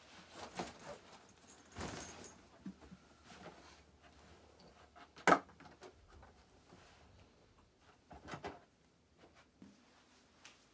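Rustling and handling of a backpack and a hard plastic carrying case on a bed, with one sharp click about halfway through as the case is unlatched.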